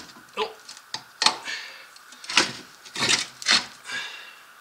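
Can-Am Outlander rear differential housing knocking and scraping against the frame as it is worked loose and pulled out: a string of separate knocks, about seven in a few seconds, some ringing briefly.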